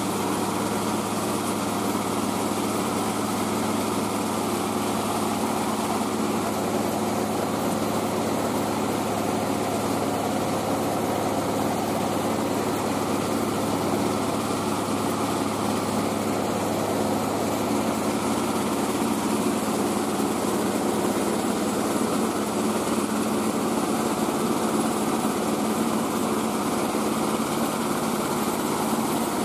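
Mobile rice-milling machine running steadily: its engine and mill drone at a constant pitch, without letting up or changing speed.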